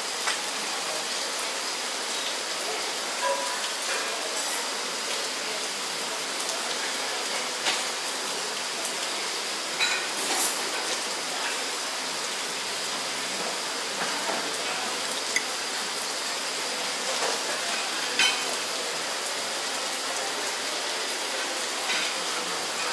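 Tropical rain falling in a steady hiss, with a few short clicks and knocks scattered through it.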